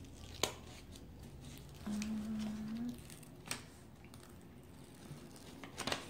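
Quiet handling of a diamond-painting canvas on a table: a few light taps and faint rustles, with a short hummed "mm" about two seconds in.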